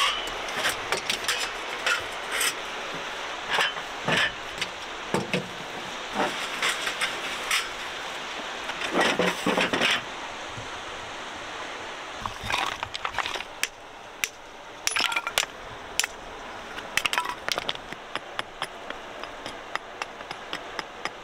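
Close-up handling of metal and wooden camping gear: a run of short clinks, clacks and knocks, with a longer clatter about nine seconds in.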